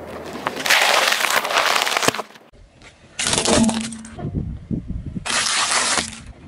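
Things being crushed under a car tyre: a loud crunching crackle lasting over a second, then, after a short lull, two shorter crunching bursts.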